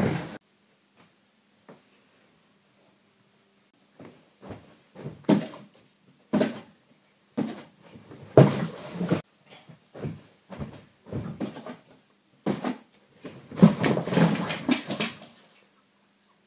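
Irregular bursts of scuffling, rustling and knocking as girls scramble and thrash over a cardboard box and a blanket, mixed with animal-like noises made with the voice. It is nearly quiet for the first few seconds, then the commotion comes in fits, loudest near the end.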